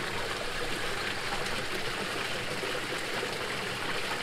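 Steady running, splashing water in a koi pond.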